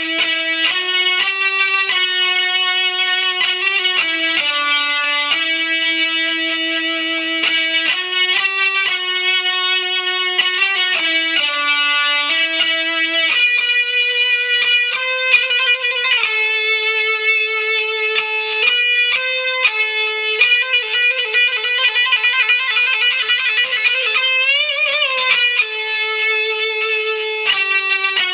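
Electric guitar playing a slow single-note melody of held notes, one note at a time. Near the end a note is bent and shaken in a wide vibrato.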